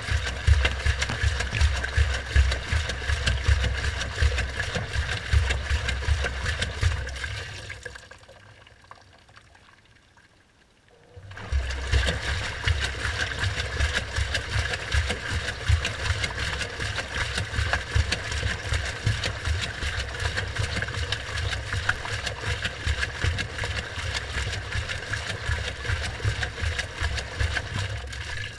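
Washing machine running, heard from inside its drum: the motor hums and the drum turns with water and suds sloshing. About seven seconds in it winds down to a stop, and a few seconds later it starts again.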